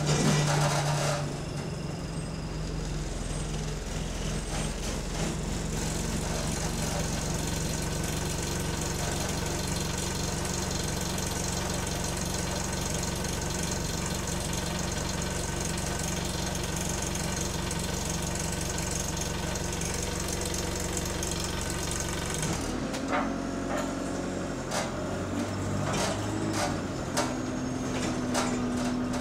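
Diesel engine of a single-deck bus, heard from inside the passenger cabin. It runs steadily, then its note changes about 22 seconds in, followed by scattered knocks and rattles.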